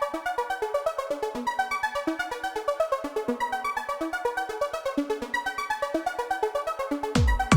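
Background electronic music: a quick, evenly pulsing synthesizer melody, joined near the end by a heavy bass beat.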